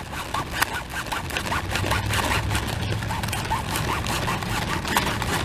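A knife sawing back and forth through a thick cabbage stem: a quick, continuous run of rasping scrapes and small clicks. The stem is really tough.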